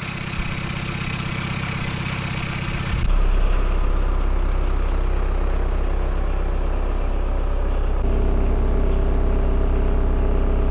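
VW 1.6 L four-cylinder turbodiesel with a freshly fitted Garrett GT22V variable-geometry turbo, idling steadily. For the first three seconds it is heard at the open engine bay, with a hiss and high whine over the engine while the turbo's vanes are actuated. It then cuts to a deeper, more muffled rumble heard from inside the cabin.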